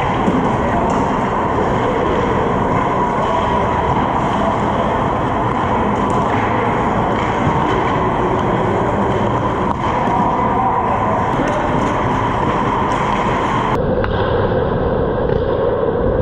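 Steady noise of an indoor ice rink, heard through a camera mounted on the goal net. About 14 s in the sound changes abruptly as it cuts to another recording.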